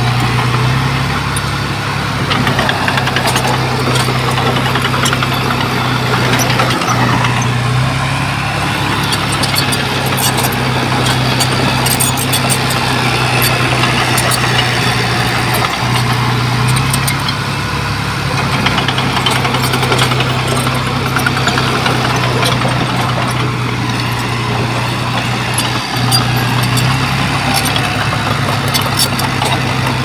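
Bulldozer's diesel engine running steadily, its pitch shifting slightly up and down every several seconds as it works, with scattered metallic clanks and clicks over it.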